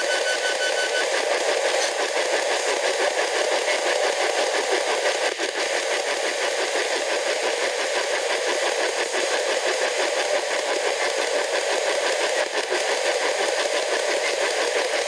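P-SB11 spirit box sweeping through radio stations: a steady, loud rush of static chopped very rapidly as it scans. A high beeping from the device stops about a second in.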